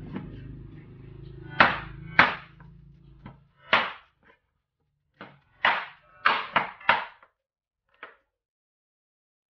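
Large knife chopping through an eel onto a wooden cutting board, about eight sharp chops at irregular intervals, some of them in quick succession.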